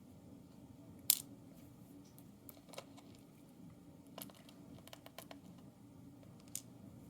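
Light metallic clicks and ticks as small pins are worked out of a padlock's lock core. One sharp click comes about a second in, followed by scattered fainter ticks, with a quick run of them around the five-second mark.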